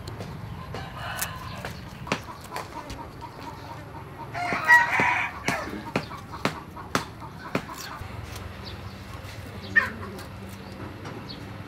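A rooster crows once, about halfway through, the loudest sound. Around it, a string of sharp clicks as kitchen scissors snip through the tough skin and fins of leatherjacket fish, with a short bird call near the end.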